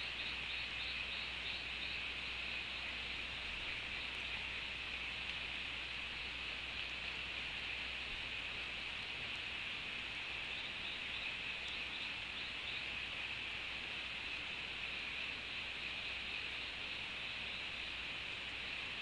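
Steady hiss of wet tropical forest ambience. A faint series of short high notes comes near the start and again about eleven seconds in.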